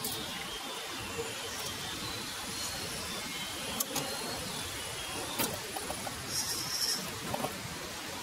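Scale RC crawler's electric drive running as it crawls through a shallow stream, water splashing around its tyres, with a few sharp clicks of tyres and chassis on stones and a brief hiss about six seconds in.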